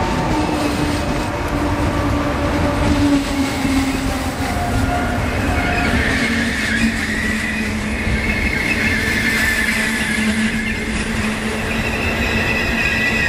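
Double-deck regional passenger coaches, hauled by an E.464 electric locomotive, rolling slowly past along the platform with a steady rumble of wheels on rail. A high steady squeal comes in about halfway through.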